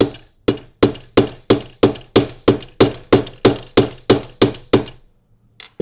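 A hammer taps a steel domed rivet setter, peening over the clipped tip of a copper rivet post on its burr in leather. There are about fifteen even strikes at about three a second, each with a short ring, that stop near the end, followed by a single sharp click.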